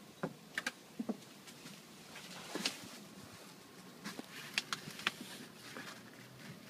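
Rustling and scattered crackles and taps of large pumpkin leaves brushing against the phone as it is pushed through the vines.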